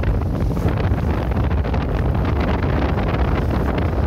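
Wind buffeting the microphone on a sailboat under way, a steady heavy rumble, with the rush of water along the hull beneath it.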